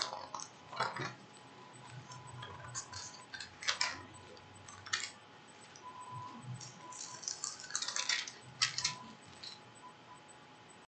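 Scattered light clicks and rattles of small objects being handled close to the microphone, over a faint steady high tone.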